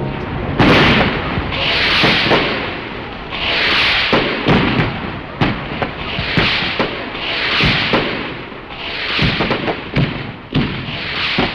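Fireworks going off: a run of hissing whooshes, about one every second and a half, among many sharp bangs and cracks.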